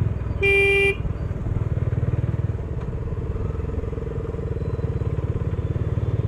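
Motorcycle engine running steadily while riding. A vehicle horn gives one short blast about half a second in.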